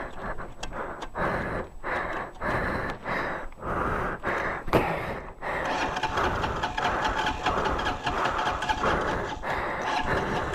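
Off-road motorcycle engine being started after stalling in gear: a rhythmic pulsing for the first half, then a steadier running note with a held tone from about halfway.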